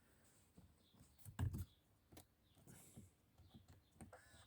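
Faint scattered clicks with one soft knock about a second and a half in; otherwise near silence.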